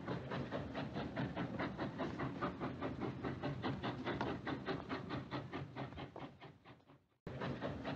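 Steam locomotive chuffing steadily at about five beats a second while pulling away, fading into the distance. It cuts out about seven seconds in, and the same kind of chuffing starts again almost at once.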